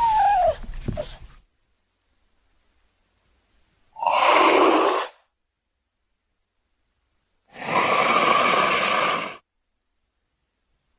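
Cougar vocal sounds. The tail of a call falls in pitch and dies away in the first second and a half. Then come two breathy, hissing exhalations: a short one about four seconds in and a longer one of nearly two seconds near the end.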